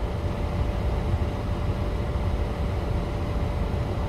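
Steady low rumble inside a parked car with its engine idling and the air-conditioning fan running, with a faint steady whine over it.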